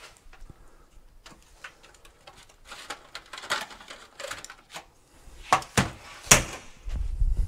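Scattered clicks, knocks and scrapes of seat-mounting hardware being handled while a car seat is worked into its floor bolt holes. The loudest knocks come about five and a half and six and a half seconds in, with a low rumble near the end.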